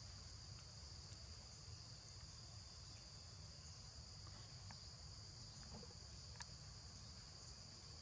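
Faint, steady high-pitched insect chorus, with a low rumble underneath.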